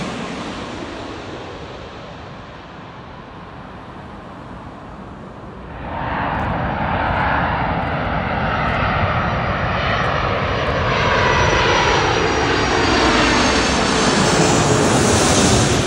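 Jet airliner noise dying away after a low pass overhead. About six seconds in the sound jumps up to a Virgin Atlantic Airbus A330-300 on final approach, its Rolls-Royce Trent 700 engines whining with tones that fall in pitch as it grows louder. It is loudest as it passes low overhead near the end.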